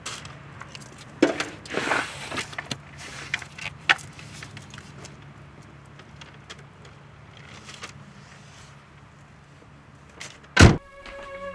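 A large cardboard box and paper bags rustling and knocking as they are pulled off a car's back seat, then a car door slams shut near the end, the loudest sound.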